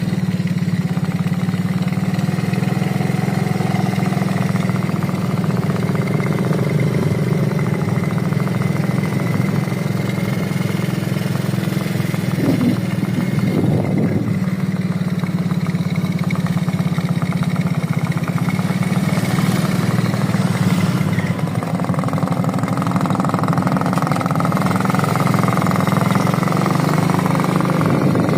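An engine running steadily at idle, with no change in speed.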